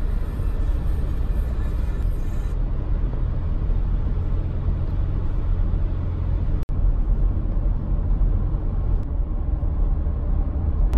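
A car driving, heard from inside the cabin: a steady low rumble of engine and road noise, with a momentary cut-out about two-thirds of the way through.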